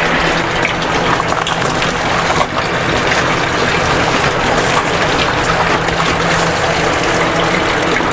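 Water running and splashing into a container as milk-replacer powder is mixed for weaned piglets, a steady rushing sound with a low hum underneath.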